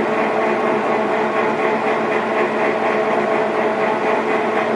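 South Bend Turn-nado CL-170E engine lathe running with its spindle under power, the geared headstock making a steady mechanical hum with several steady tones.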